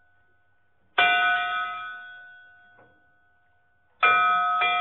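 A bell-like chime struck twice, about three seconds apart, each strike ringing out and fading over a second or two. The second strike is followed almost at once by a lighter extra hit.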